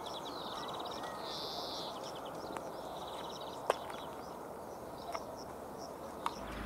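Small birds chirping and trilling over a steady outdoor background, with a few sharp clicks in the second half.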